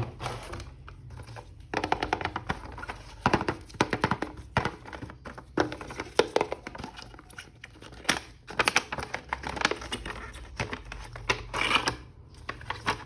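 A plastic action figure and its packaging being handled and unwrapped by hand: bursts of quick clicks and taps with plastic crinkling.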